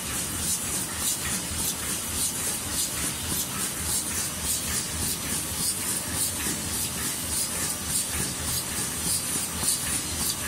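Interfold dispenser napkin machine running: steady machine noise under a high hiss that pulses at a fast, even rate.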